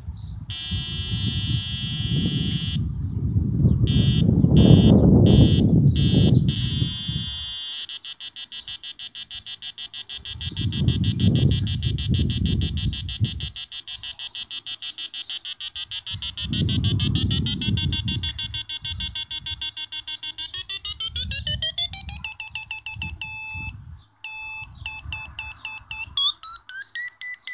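A 556-timer square-wave synth buzzing through a small speaker, its tone stuttering into rapid pulses and sweeping in pitch, with a rising glide about three quarters of the way through. Deep rumbling swells come and go underneath, loudest in the first third.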